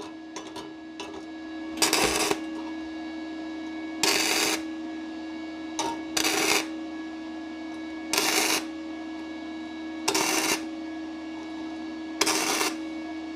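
Parkside PMSG200A1 inverter welder running 0.6 mm flux-core wire, laying tack welds on 0.7 mm sheet steel: a series of half-second bursts of arc crackle about every two seconds, with a steady hum underneath.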